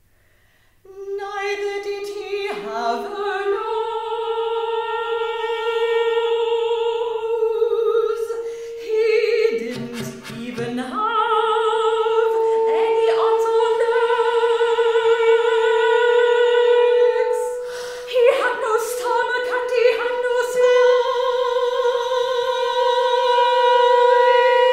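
Soprano singing long held notes with vibrato in an operatic style, with flute and a small chamber ensemble of contemporary classical music. The music begins about a second in and breaks off briefly twice.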